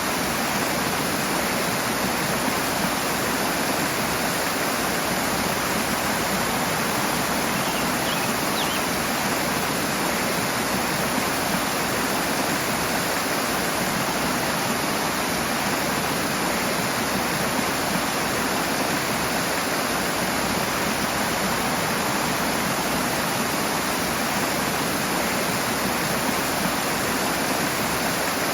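Rushing stream water, a dense, steady hiss and rumble without letup.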